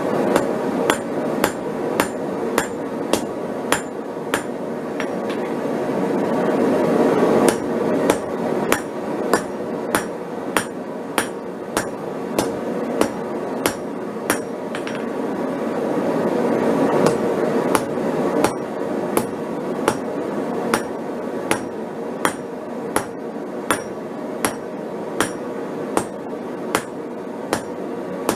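Hand hammer striking hot steel on an anvil in steady ringing blows, about two to three a second, over the steady roar of a lit propane forge. The hammering pauses twice for a few seconds while the forge roar comes up louder.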